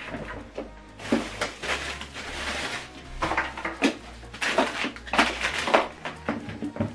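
Unpacking and handling of a soundbar set: plastic packaging rustling, with irregular knocks and clicks of parts set down on a tabletop.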